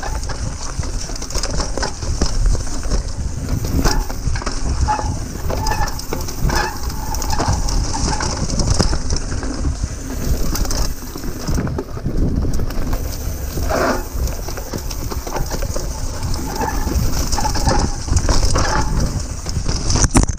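Mountain bike descending a rough dirt trail: steady wind and trail rattle, with repeated short, high squeals from the squeaky brakes each time they are applied. A loud knock comes right at the end as the bike goes down.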